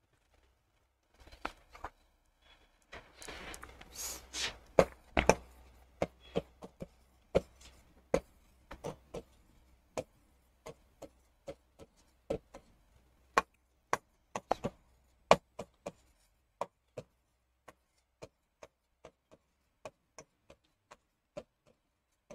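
A pen tapping and scraping on the writing surface as text is written by hand: a scratchy stretch in the first few seconds, then a long run of sharp, uneven taps about two a second.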